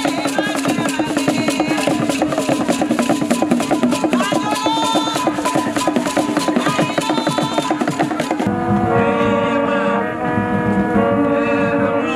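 Traditional Ghanaian drum ensemble playing a fast, dense rhythm on barrel drums with rattles, and voices singing over it. About eight seconds in it switches abruptly to a group of hand-held horns blown in long, steady notes at several pitches.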